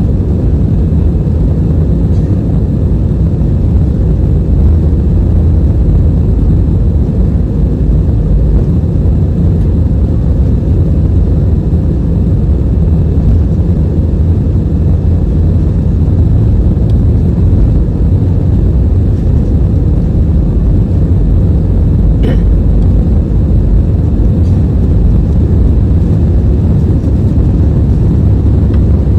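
Steady low rumble of a jet airliner's engines and airflow heard from inside the passenger cabin, with one faint click late on.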